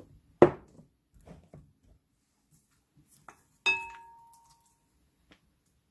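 Kitchen utensils and glassware knocking against a glass mixing bowl and bottles: a sharp knock about half a second in, a few light taps, then a glassy clink that rings for about a second.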